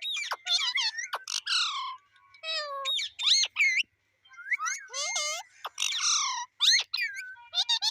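Pet parrot calling: a fast run of high, sharply gliding whistles, chirps and squawks, with brief pauses about two and four seconds in.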